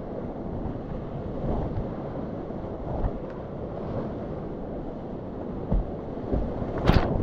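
Whitewater rapids of a glacier-fed alpine river at flood stage, rushing steadily all around a kayak moving through the current. Short splashes of waves and paddle strokes come through it, with the loudest splash near the end.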